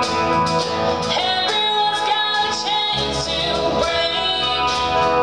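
Live rock band playing: a woman sings over a strummed acoustic guitar and a drum kit with cymbal hits.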